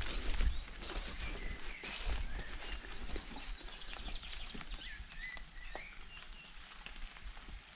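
Footsteps crunching and crackling on leaf litter and twigs, with a few short bird chirps in the background and low thumps near the start.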